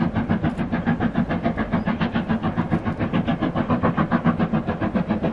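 Steam locomotive pulling a train, its exhaust chuffing in a fast, even rhythm of about six beats a second over a low steady rumble.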